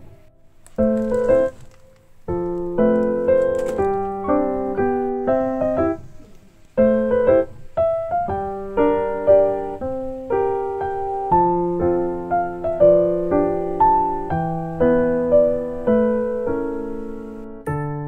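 Background piano music: a light melody of struck notes that fade away, pausing briefly near the start and again about six seconds in.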